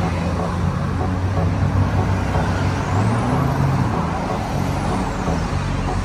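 Steady road traffic noise with the low rumble of a heavy vehicle's engine.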